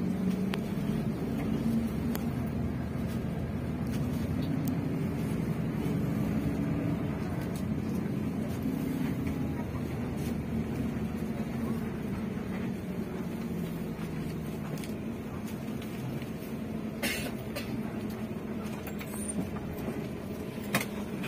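Bus engine running with a steady low rumble, heard from inside the cabin as the bus drives, with a couple of brief knocks near the end.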